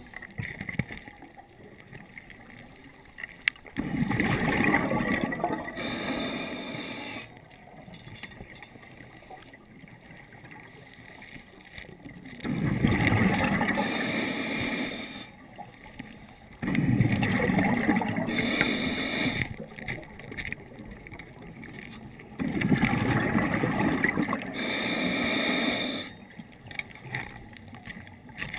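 Scuba diver breathing through a regulator underwater: four breaths several seconds apart, each a few seconds of rushing bubble noise ending in a higher hiss.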